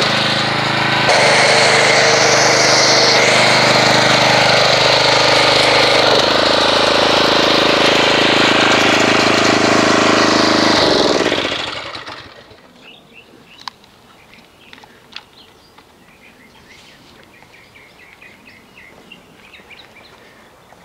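Pressure washer running steadily, then switched off about eleven seconds in, its pitch falling as it winds down. Faint bird chirps follow.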